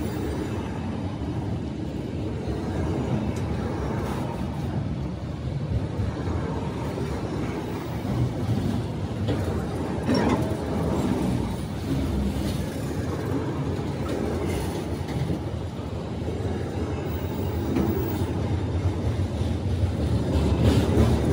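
Autorack cars of a CSX freight train rolling past: a steady rumble and clatter of steel wheels on the rails, getting somewhat louder near the end.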